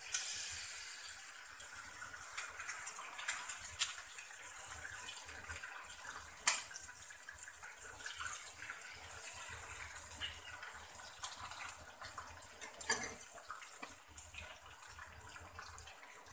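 Egg sizzling and crackling in hot oil in a frying pan, a steady hiss that starts loud as the egg hits the pan and eases a little. A sharp click about six and a half seconds in.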